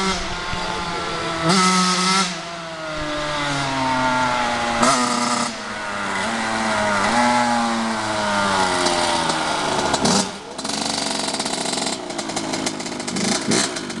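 Two-stroke dirt bike engine under throttle, climbing in pitch and dropping back at each gear change several times as the bike comes up the street toward the listener. It turns rougher and more clattery near the end as the bike comes close.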